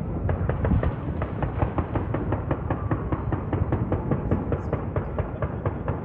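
Fireworks going off: a rapid string of sharp pops and bangs, about six or seven a second, over a steady low rumble.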